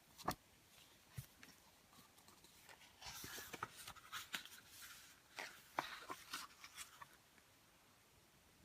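Faint rustling and small clicks of a book being handled and its pages turned. The rustling is busiest in the middle few seconds.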